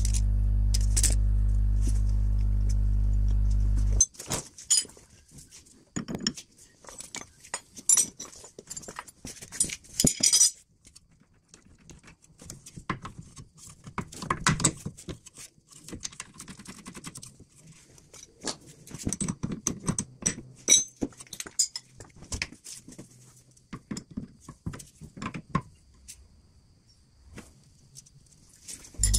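A steady low hum that cuts off abruptly about four seconds in, followed by scattered metallic clicks, clinks and light knocks from hands and tools working the outer tie rod onto the inner tie rod of a car's steering.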